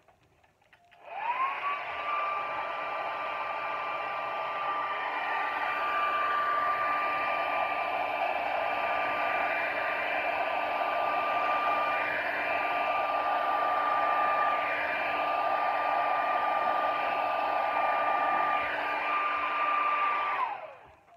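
Hair dryer on its cool setting blowing steadily. It switches on about a second in, its motor whine rising quickly to a steady pitch over the rush of air, and it winds down and stops near the end.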